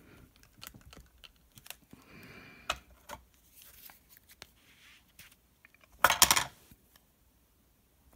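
Crafting handling noises as a clear acrylic stamp block and an embossing ink pad are worked over cardstock: scattered light clicks, taps and rustles, with a louder scratchy burst of rapid taps about six seconds in.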